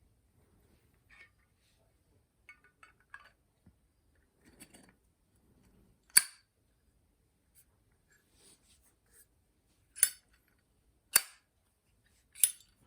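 Zippo lighter being handled: light metallic clicking, then four sharp, loud clacks spaced a few seconds apart, typical of the hinged lid snapping open and shut.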